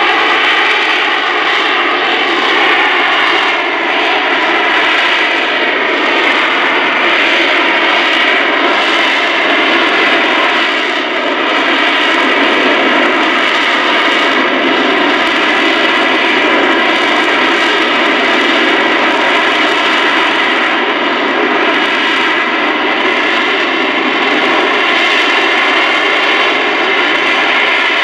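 AV-8B Harrier II's Rolls-Royce Pegasus turbofan running steadily at high power: a loud, even jet noise with a layered whine in it.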